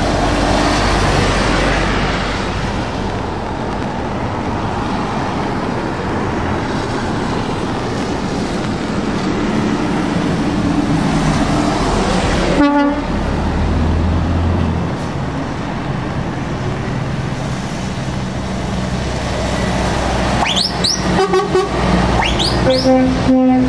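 Heavy trucks passing on a rain-soaked road, diesel engines running and tyres hissing through the spray. A short horn toot sounds about halfway, and a truck air horn is held near the end.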